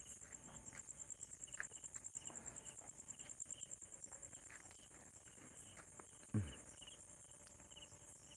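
Crickets calling in a steady, rapidly pulsing high-pitched trill, with softer short chirps repeating below it. A brief low sound falling in pitch stands out about six and a half seconds in.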